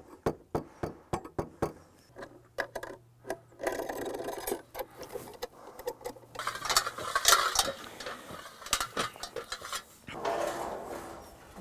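Metal gutter brackets being knocked into place with a mallet: a quick run of sharp taps, about four a second, in the first two seconds, then scattered knocks with stretches of scraping between.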